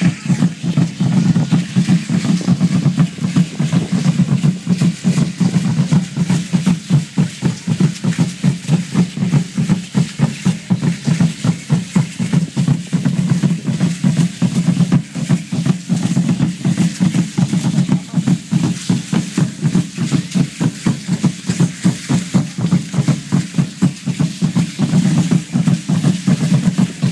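Large drum beaten in a fast, even beat for Aztec (Mexica) ceremonial dance, with a rattling shimmer above the beat.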